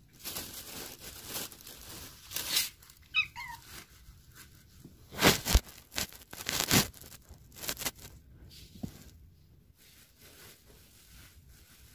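A domestic cat meows once, a short falling call about three seconds in, amid the crinkling and rustling of plastic shopping bags and a plastic bag of cat litter being handled. The loudest sounds are a few sharp plastic rustles around the middle.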